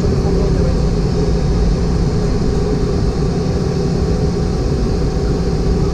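Steady cabin noise inside a Boeing 717 on the ground after landing: a constant low rumble with a steady hum.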